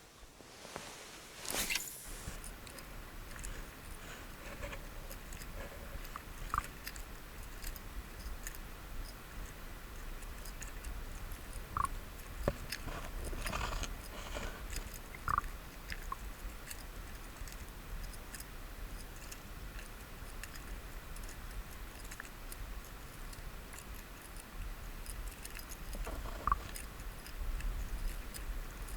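Small handling noises: scattered light clicks and crackles of small objects worked by hand, with four short clear clinks spread through it, over a low steady hum.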